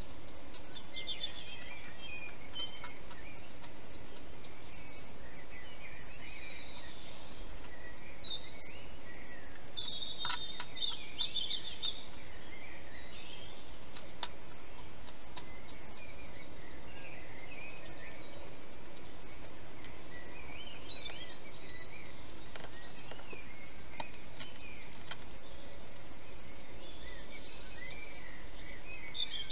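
Small birds chirping and singing faintly in early-morning birdsong over a steady hiss, with a few sharp clicks about a third and halfway in.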